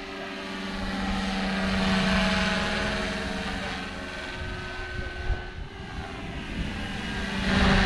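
Radio-controlled scale model helicopter in flight, its rotor and drive giving a steady pitched hum and whine. It swells to its loudest about two seconds in as it passes, then eases off before growing again near the end.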